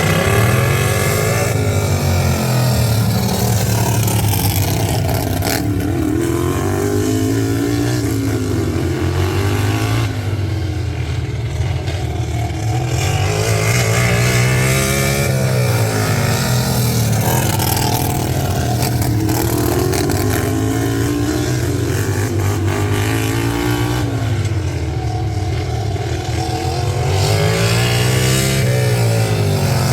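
Racing lawn tractor engine running hard on a track, its pitch climbing and dropping in regular cycles about every six to seven seconds as it revs up and backs off.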